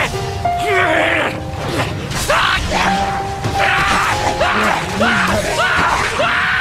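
Dramatic anime battle soundtrack music, mixed with yelling voices and repeated bursts of rushing noise.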